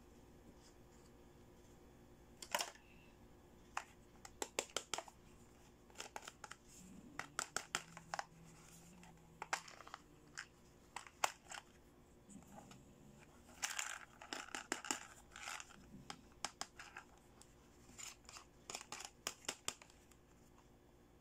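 Hard plastic doll accessories clicking and tapping as they are handled and set down, with a small plastic toy handbag being opened and snapped shut. Sharp clicks in irregular clusters.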